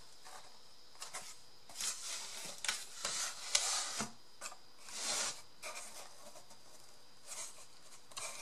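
Cardboard pieces being handled and rubbed against each other: a run of irregular short, dry rustles and scrapes.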